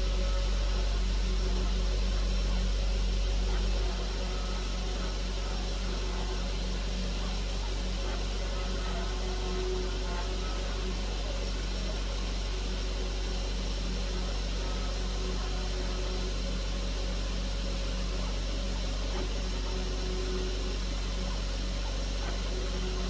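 Live-tooling milling spindle on a DIY four-axis CNC lathe running steadily while a small end mill engraves lettering into bar stock, under a constant low machine hum that drops a little about four seconds in.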